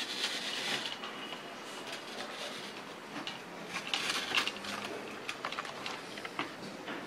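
Glass cutter scoring a green wine bottle as it is turned by hand on a roller jig: a scratchy hiss with small crackling clicks, louder in two stretches, once near the start and again about four seconds in.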